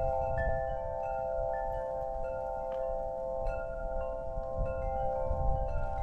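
Metal wind chimes ringing in the wind: several tones struck at uneven moments, overlapping and ringing on. Wind rumbles on the microphone underneath, in stronger gusts near the end.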